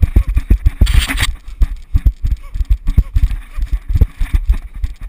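Running footsteps on a dirt trail: rapid, even heavy thuds of each stride, jolting through a camera worn by the runner. A short rush of noise comes about a second in.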